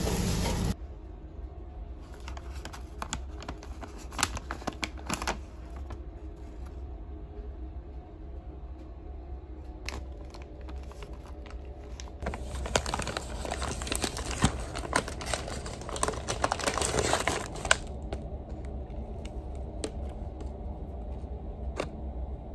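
Cookie bag's wrapper crinkling and tearing as it is opened and handled. The crinkling comes in scattered bursts early on, then a louder, dense stretch of about five seconds a little past the middle. A steady low hum sits underneath.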